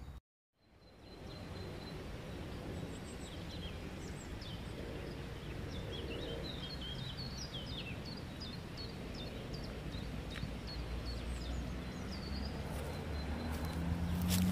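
Small songbirds chirping and twittering over a steady low outdoor hum, with a brief dropout to silence just after the start. Near the end the low hum grows louder and a few footsteps sound as a walker passes close by.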